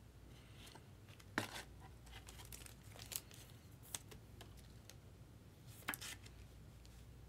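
Faint, scattered crinkling and tearing of a foil trading-card pack wrapper, with a few soft clicks of the cards being handled.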